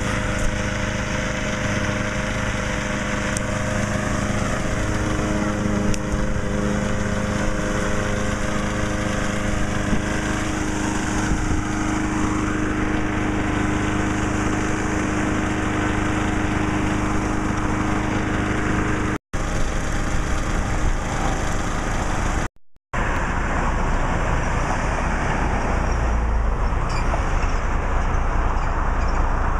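Motor vehicle engine running steadily with road noise. The sound cuts out briefly twice about two-thirds of the way through.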